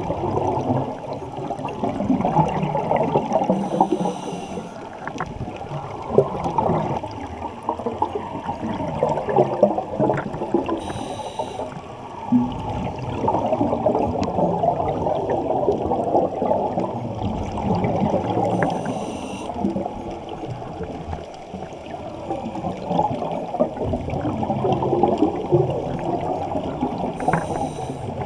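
Underwater sound of scuba breathing and bubbles, heard through a camera housing: a steady bubbling rumble, broken by a short hiss about every seven seconds.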